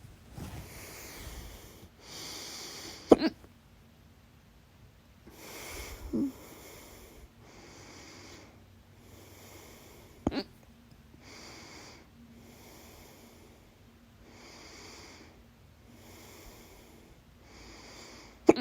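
A woman's loud hiccups: four sharp hiccups a few seconds apart, with her breathing audible in between.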